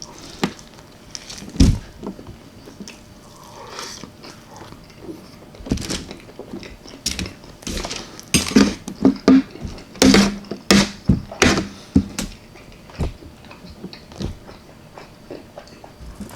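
Close-up eating sounds of a person chewing and biting baked chicken breast topped with tomato paste and mozzarella: wet mouth smacks and clicks, coming thickest between about eight and twelve seconds in.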